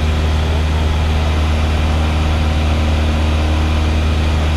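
Light single-engine propeller airplane's piston engine and propeller running steadily in flight, heard from inside the cabin as a constant low drone with no change in pitch.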